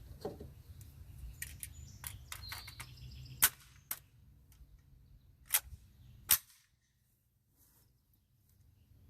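Semi-automatic Sterling Mk4 (L2A3) 9 mm carbine fired in single shots, live-fire testing a newly made bolt: three loud shots, the second about two seconds after the first and the third less than a second later, with a weaker sharp crack just after the first. A few light clicks come before the shooting.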